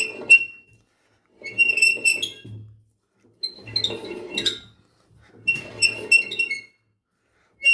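Washing machine whose electronic control board has burned out, giving a repeated electrical buzz with high beeping tones about once every two seconds, each lasting about a second.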